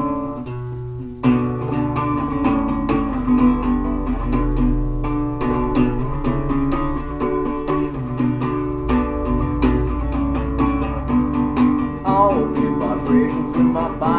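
Acoustic guitar strummed in the song's instrumental break, thin for the first second, then fuller steady strumming. A man's voice starts singing near the end.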